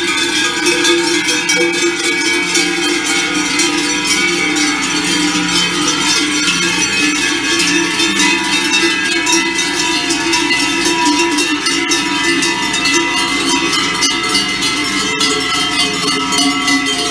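Many cowbells clanging at once, a continuous dense jangle of overlapping ringing tones, hung on the necks of a herd of cattle walking along.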